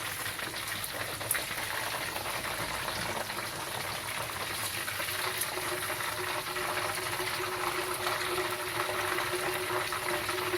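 Hot frying oil bubbling and crackling steadily in a pan. A low steady hum joins about halfway through.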